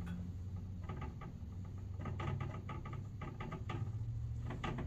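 Dry-erase marker writing on a whiteboard: a quick run of short, squeaky strokes, over a low steady hum.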